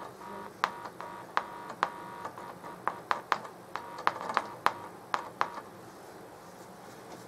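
Rank Hi-Fi loudspeaker, driven by a homemade breadboard transistor amplifier, giving a run of irregular pops, each with a short buzz, as a fingertip touches the amplifier's input jack. The pops stop about five and a half seconds in.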